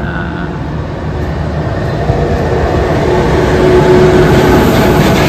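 A train approaching, its rumble growing steadily louder.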